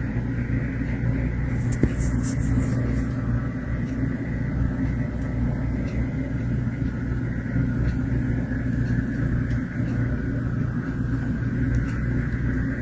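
A motor vehicle driving, a steady low rumble of engine and road noise.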